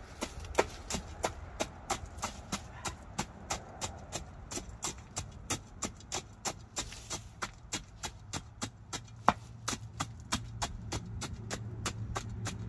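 Steel tamping bar jabbed repeatedly into crushed-stone ballast, packing it under the ties of small-gauge track. It makes a steady run of sharp clicks and crunches, about three a second.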